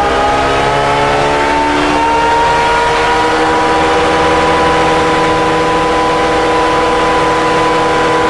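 Honda ADV160 scooter's single-cylinder engine at full throttle on a chassis dyno, with the stock ECU before remapping. Its note rises for the first two or three seconds as speed climbs, then levels off and holds steady at top speed.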